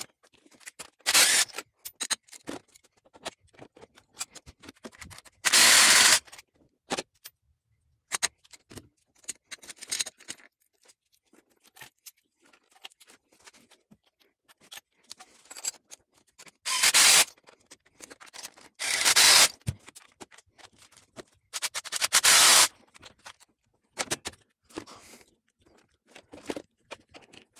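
A cordless power tool run in short bursts, about five of them, each well under a second to a second long, as a 10 mm bolt on an engine bracket is taken off, with small clicks and clatter of parts and tools being handled between the bursts.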